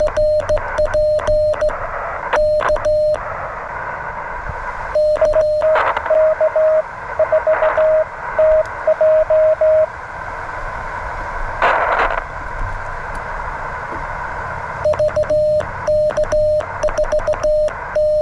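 Morse code (CW) tone from a (tr)uSDX QRP transceiver. It alternates between the sidetone of the operator's own sending on a straight key and another station's keying heard over the 40 m band's hiss in the middle. A single static crash comes about twelve seconds in.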